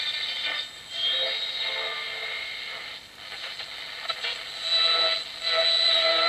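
Shortwave radio reception from a homebuilt slug-tuned receiver's speaker: hiss and faint station audio laced with steady whistling tones, fading out briefly twice. Near the end a wavering whistle comes in.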